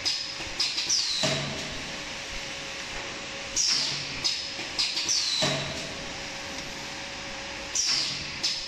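Paper tray forming machine cycling about every four seconds. Each cycle is a cluster of clacks and knocks with short hisses of air, one of them falling in pitch, over a steady hum.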